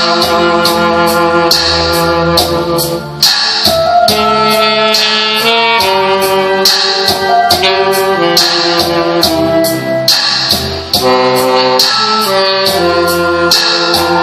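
Band music in an instrumental passage: a horn plays a sustained melody over a steady beat.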